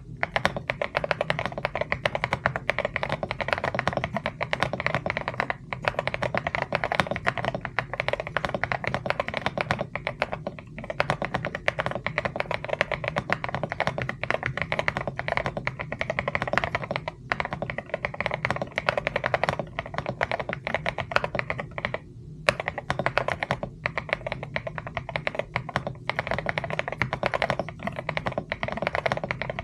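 Fast typing on a mechanical keyboard: a dense run of keystroke clicks, broken by a couple of brief pauses in the second half.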